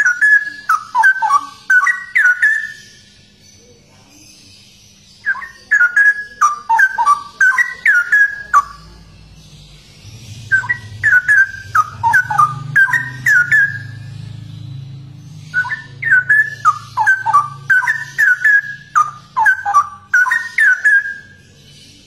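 Straw-headed bulbul (cucak rowo) singing: four loud phrases of rapid, rich whistled notes, each three to five seconds long, separated by short pauses.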